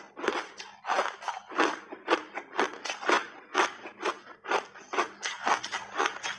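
Refrozen crushed ice being chewed, crunching in a steady run of about two sharp crunches a second.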